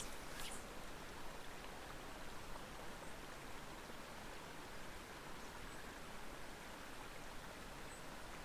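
Faint, steady trickle of creek water, with a couple of light ticks about half a second in.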